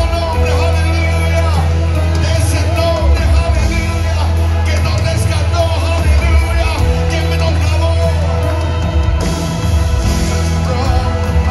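Live worship music: a band with keyboard and a steady heavy bass under a group of singers with microphones.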